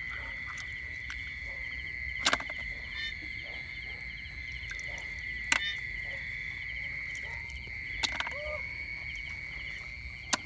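Night chorus of frogs and insects: a steady high drone with short repeated calls over it, broken by four sharp clicks a few seconds apart.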